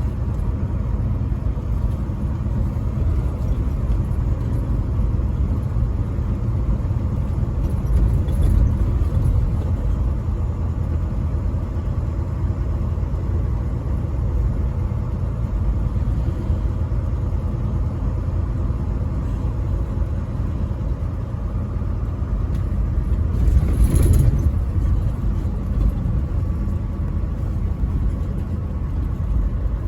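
Truck on the road: a steady low rumble of engine and road noise, with a brief louder swell about three-quarters of the way through.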